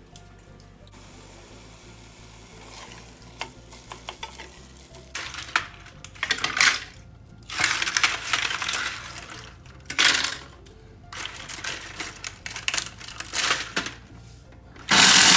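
Dry, oven-baked eggshells clattering and crackling against a plastic food processor bowl as they are dropped in by the handful, in several bursts. Near the end a Kenwood food processor motor switches on with a loud, steady whir and starts grinding the shells into powder.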